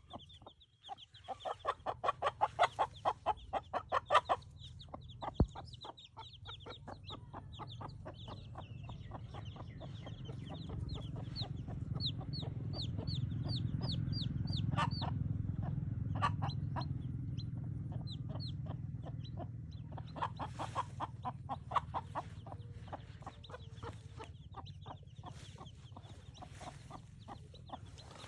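A mother hen clucking in fast runs, the tuk-tuk food call that draws chicks to food, while her chicks peep with short high chirps. A low rumble swells under the calls in the middle.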